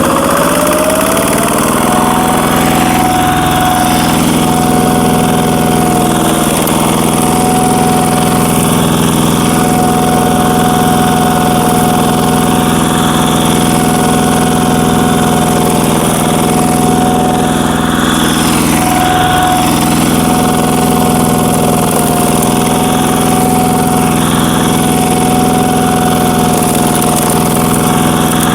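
A Korean power tiller's single-cylinder diesel engine revving up over the first two seconds as the accelerator is opened fully, then running steadily at full throttle with a steady whine over it.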